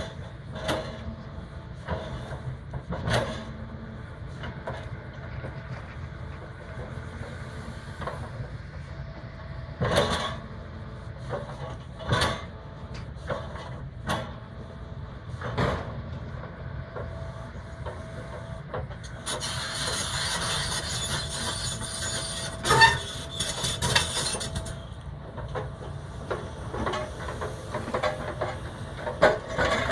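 Hitachi hydraulic excavator's diesel engine running steadily, with sharp metallic clanks and bangs every few seconds as its demolition grab handles steel antenna tubes. A loud hiss lasts about five seconds past the middle.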